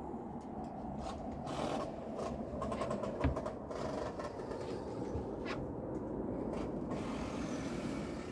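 Wind rumbling on a handheld phone's microphone, with scattered handling knocks and one heavier thump about three seconds in.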